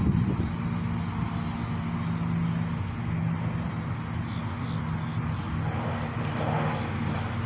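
Steady low engine drone in the background, holding an even pitch throughout.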